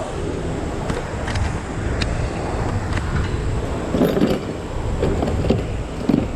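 Steady rush of several shop fans, with scattered short clicks and knocks from about four seconds in.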